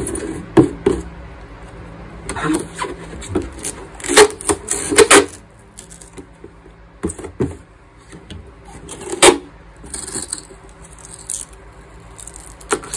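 Packing tape being pulled off the roll in several short, sharp rips and pressed onto a thin clear plastic container, with crinkling and rustling as the plastic is handled. The loudest rips come about four to five seconds in and again around nine seconds.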